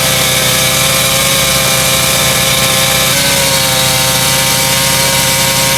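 An engine-driven machine running steadily at a constant pitch, with a slight shift in tone about three seconds in.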